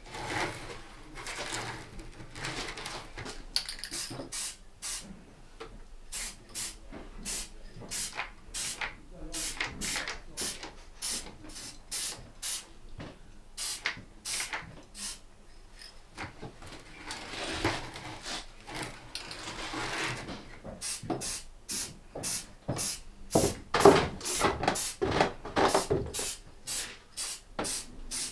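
Aerosol spray-paint can hissing in many short bursts, with a few longer sprays, as paint is misted onto small model railway cars.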